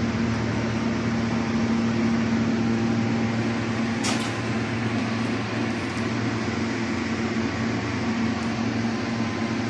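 Exhaust fan running steadily with a low hum, with a short hiss about four seconds in.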